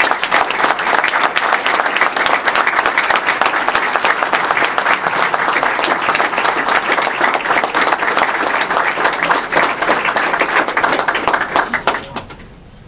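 Audience applauding, a large crowd's dense sustained clapping that dies away near the end.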